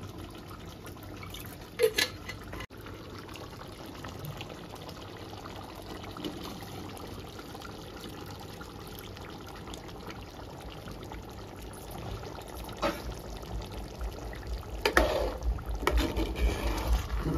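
A little water rinsed from a pressure cooker being poured into the mutton curry, a steady wet pouring sound. A sharp metal knock about two seconds in, and a few knocks of utensils on the pot near the end.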